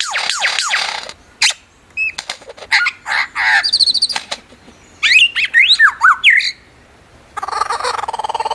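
Lyrebird calling: a quick run of falling whistles, then sharp clicks, chirps and swooping whistled notes with short gaps between them, and a buzzy, pulsing sound of many tones near the end.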